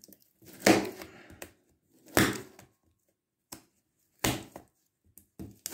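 Cardboard box and its packing tape being forced open with a small hard black object: three loud scraping strokes about a second and a half apart, each dying away within a fraction of a second, with a few fainter ones in between.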